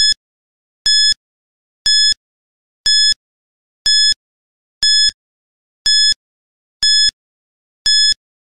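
Countdown timer sound effect: one short high-pitched beep each second, nine beeps in all, counting off the seconds left to answer.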